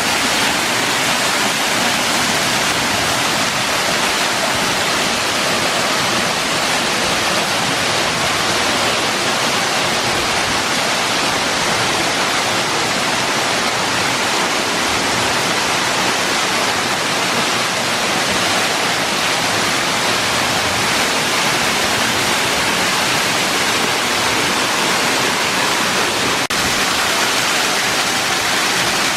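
A waterfall's water pouring steadily, a constant, even noise.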